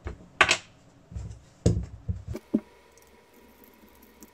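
Close handling noise of small knife parts and tools on a work surface: a series of knocks and rubs, the loudest about half a second in and another a little before two seconds in, then it goes quiet.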